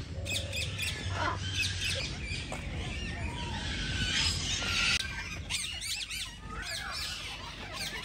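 Many caged parrots and parakeets calling over one another, a dense mix of high-pitched calls.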